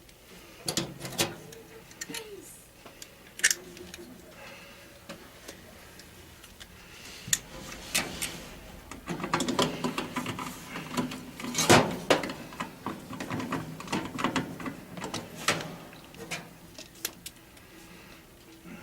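Hand work on an electric furnace's wiring and contactor: scattered clicks, taps and small metallic rattles from a screwdriver, wires and parts, busiest in the middle.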